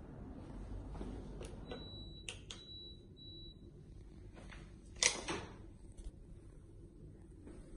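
Low rumbling handling noise with a few faint sharp clicks and a thin, high steady tone lasting about two seconds, then a louder sharp click about five seconds in.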